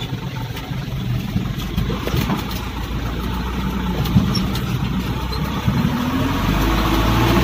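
Dump truck's diesel engine running while the truck drives slowly over a muddy track, heard from inside the cab, with a few short knocks. The engine gets louder and its pitch rises near the end as the driver gives it more throttle.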